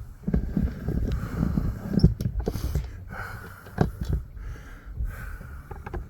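Irregular knocks, clicks and low rumbling, like handling and movement noise, with no steady machine running.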